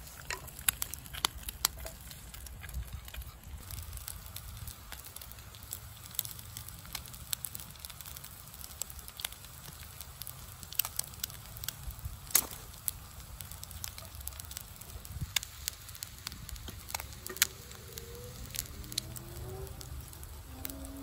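Small wood fire crackling: irregular sharp snaps and pops over a steady low rumble.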